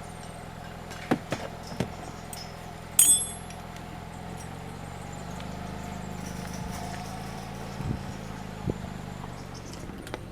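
Car engine idling steadily, with sharp metallic clicks and one loud ringing clink about three seconds in as a code lock on a gate is worked open, and a couple of dull knocks near the end.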